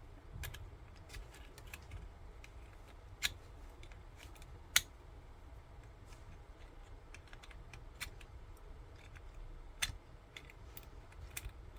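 Scattered sharp clicks and taps of small plastic parts and a tool being handled while a JBL headphone's housing is taken apart, about half a dozen spread unevenly, the loudest a little before the middle.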